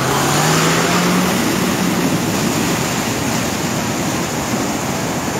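Floodwater rushing hard across a road in a steady loud roar of water. Over the first two seconds a vehicle engine revs up, rising in pitch, as it pushes through the current.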